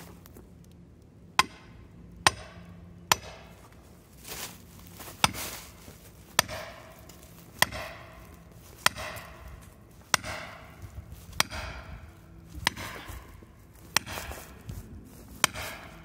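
Axe poll hammering a felling wedge into the back cut of a large poplar, about a dozen sharp strikes roughly one every second and a quarter. Driving the wedge in lifts the tree to tip it over the hinge.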